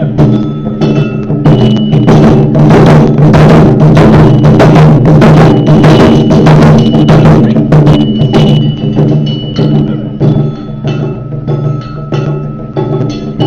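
Taiko drum ensemble playing loud, fast strikes together, busiest in the middle and thinning out near the end.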